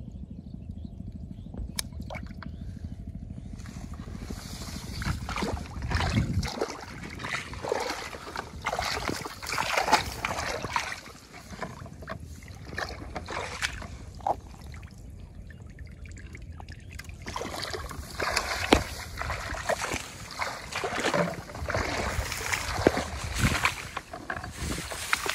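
Irregular rustling and handling noises, with some water sloshing and trickling, while a plastic-bottle fish trap is worked at the edge of a water channel among rice plants. The noises come in uneven clusters, with a quieter stretch midway.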